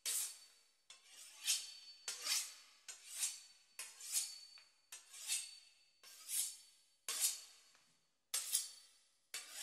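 A knife sawing through the crisp puff-pastry crust of a beef Wellington, with rasping strokes that each swell and fade at about one a second.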